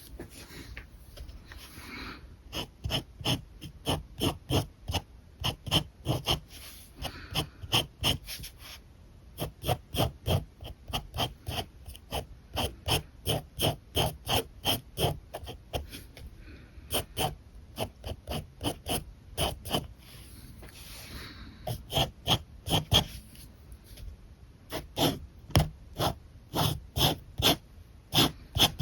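Alcohol marker scratching over paper in quick back-and-forth colouring strokes, about three to four a second, with a few short pauses.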